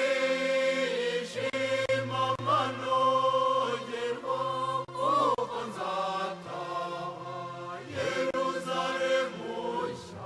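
Background music with chant-like singing over a steady low drone; a louder passage starts abruptly.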